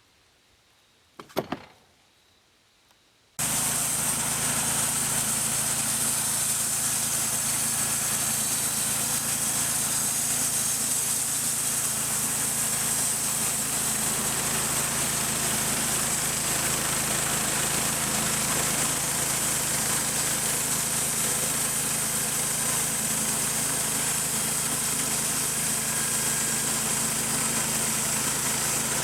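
Sawmill engine running steadily at a constant speed. It starts abruptly about three and a half seconds in, after a short clatter in near-quiet.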